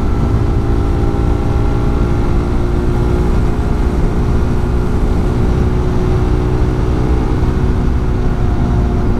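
Motorcycle engine running under way at a steady pitch, over a heavy low rumble of wind and road.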